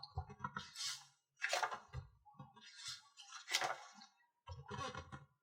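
Intermittent rustling and light clicking of parts or papers being handled, in a dozen or so short, separate bursts.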